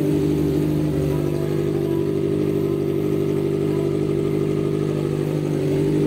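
Kawasaki ZX-4RR's 399 cc inline-four idling steadily through an aftermarket slip-on exhaust.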